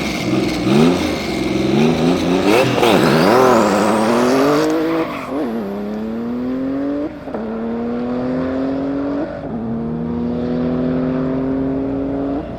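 Tuned Porsche 993 Turbo's 3.6-litre twin-turbo flat-six revved sharply up and down several times, with a turbo whistle rising in pitch. About five seconds in the car pulls away hard and accelerates through the gears, the engine note climbing in each gear, with a short dip at each of several upshifts.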